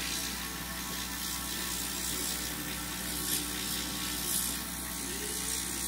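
Gravity-feed airbrush hissing as it sprays, over the steady hum of a small air compressor; the hiss swells briefly a couple of times.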